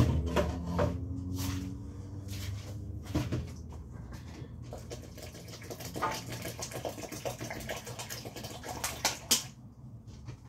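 Scattered knocks and clatter of kitchen containers and dishes being handled and set down on a counter, with sharper knocks about a second and a half in and again near nine seconds.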